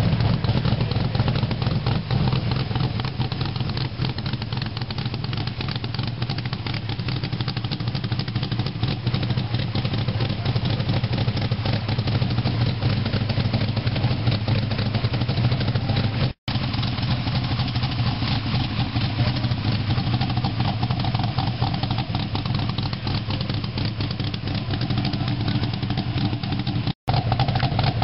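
Hot rod's engine idling through open side exhaust pipes, a steady low rumble. The sound drops out for an instant twice.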